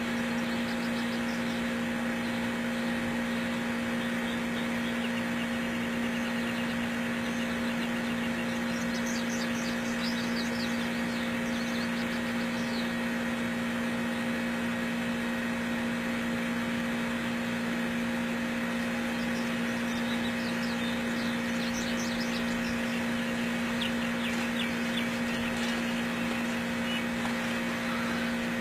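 Steady hum with a constant low tone and no change in level, like a machine running nearby, with faint high chirps now and then.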